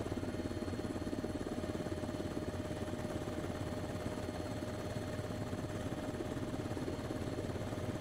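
Steady engine drone from the aircraft filming from above: a low hum with a constant mid-pitched whine over it.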